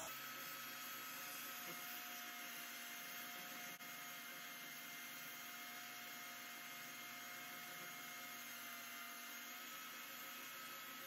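DeWalt DW433 3×21-inch belt sander running steadily with a new sanding belt: an even motor whine over a hiss.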